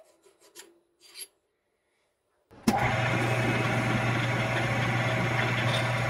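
Light metal-on-metal rubbing and scraping as a turned steel part is worked into a collet by hand. After a break, a ShopTask lathe-mill combo comes in with a sharp click about two and a half seconds in and runs steadily with a constant low hum.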